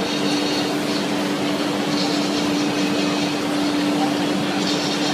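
Louver-slat grooving machine running, its electric motors giving a steady, even hum with one constant tone.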